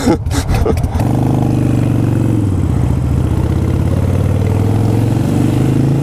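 Harley-Davidson V-twin motorcycle engine pulling away and running under load, after a few clicks in the first second. The engine note steps down at a gear change about two and a half seconds in and climbs again near the end.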